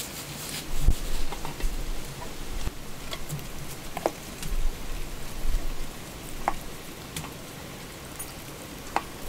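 Steady rain pattering, with scattered sharp ticks and a few low thuds, the loudest about a second in.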